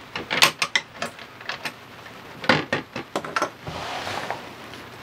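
Sailboat's wooden companionway hatch being unlocked and opened: sharp metal clicks from the padlock and hasp, and knocks of the wooden boards, in two short clusters, then a soft rubbing sound near the end.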